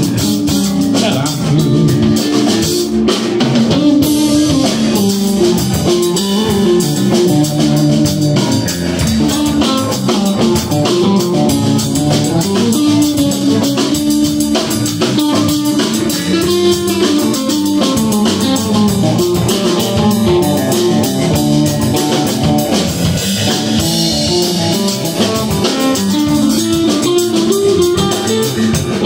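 Live band playing an instrumental passage: electric guitar over electric bass and a Gretsch drum kit.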